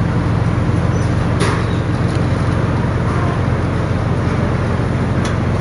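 Steady low rumbling noise, with a light click about a second and a half in and another near the end.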